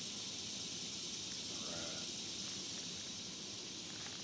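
Quiet forest ambience: a steady, even high-pitched hiss with no distinct events.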